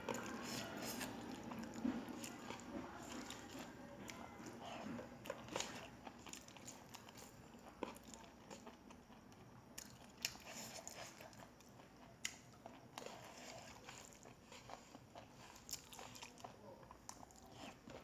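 A person chewing and biting food close to the microphone: irregular small crunches and wet mouth clicks.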